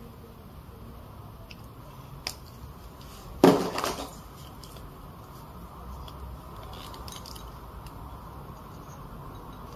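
Quiet clicks and taps of paint tubes and a mixing dish being handled while a base colour of white and green is made up, with one louder knock about three and a half seconds in.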